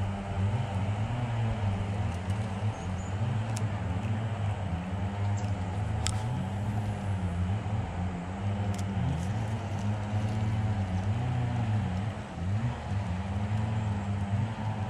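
A small engine running continuously, its pitch wavering up and down.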